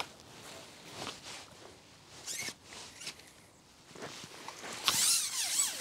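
Fishing tackle being handled while a small fish is landed: a sharp click at the start, soft rustling, and a short, loud squeaky rub about five seconds in.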